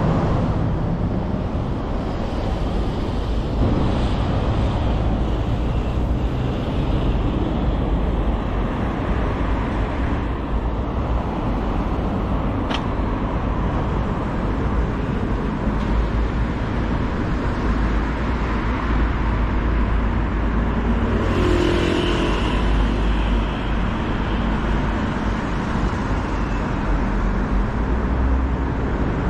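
City street traffic: a steady rumble of cars and other vehicles running and passing by.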